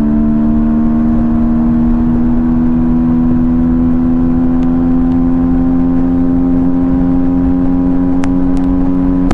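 Yamaha MT-15's single-cylinder 155 cc engine, breathing through an open air filter, pulling hard at high revs while riding, its steady note creeping slowly higher in pitch.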